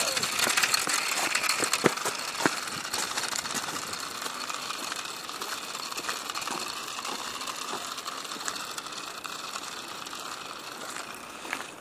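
Rattling and clicking of a small child's bicycle with training wheels, and a plastic toy dragged behind it on a string, rolling over paving slabs; the sound slowly fades as the bike moves off.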